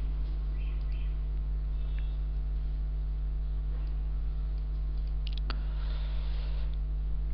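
Steady low electrical mains hum, with a few faint clicks about five seconds in.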